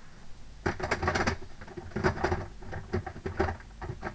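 Small hard objects clicking and clattering in irregular bursts as craft supplies are handled and moved about in a drawer.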